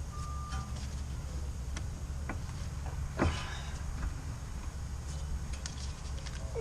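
Scattered metal clinks and knocks from work on the front CV axle as it is pushed out through the wheel hub and knuckle, the loudest knock about three seconds in, over a steady low hum.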